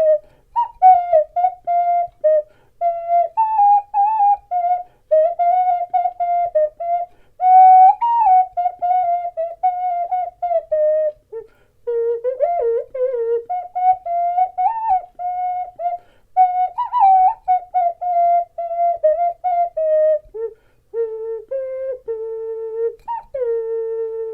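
Ceramic ocarina playing a melody of short, separated notes with quick ornaments, its pure tone carrying only faint overtones. It ends on a longer held low note.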